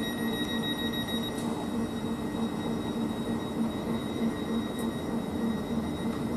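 Stationary Class 442 electric multiple unit standing at the platform, its onboard equipment giving a steady hum with several held tones. A high-pitched whine cuts out about a second in.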